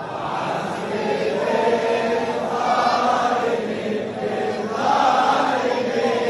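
A group of voices chanting sholawat together in unison, Islamic devotional praise sung in long, continuous phrases.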